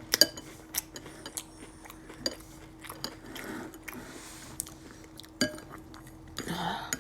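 Spoon clinking against a cereal bowl several times, some strikes ringing briefly, with chewing of crunchy cinnamon cereal in milk between them. A brief voice sound near the end.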